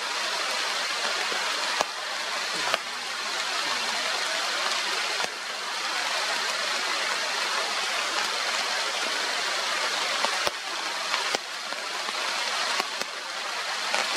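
Steady heavy rain falling on rainforest, a constant hiss with scattered sharp ticks of drops striking near the microphone.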